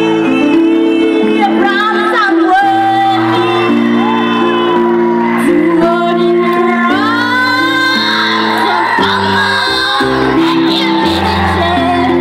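Live music through a hall sound system: a woman singing over held electronic keyboard chords.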